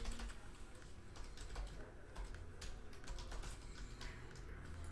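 Typing on a computer keyboard: a run of irregular key clicks.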